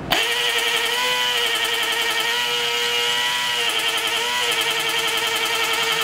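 Electric air-horn compressor, the motor-driven pump of a truck pressure horn, running on a bench test connection: a steady high-pitched whine that starts abruptly and wavers slightly in pitch twice.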